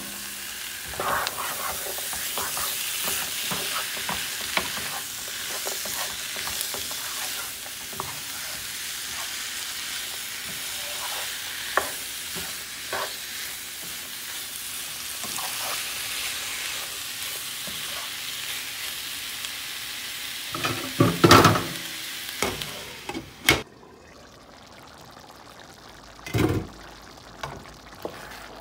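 Chicken pieces and chopped onion, celery and peppers sizzling in a frying pan as they are stirred with a wooden spoon, with clicks of the spoon scraping the pan. A few loud knocks come a little after twenty seconds, and the sizzling stops near the end.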